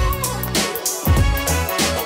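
Background music with a steady beat: low drum hits and bright hi-hat ticks.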